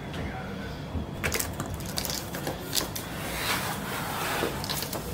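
Flat-pack cardboard boxes being handled and shifted on a wooden floor: a dense run of irregular clicks and rustles that starts about a second in.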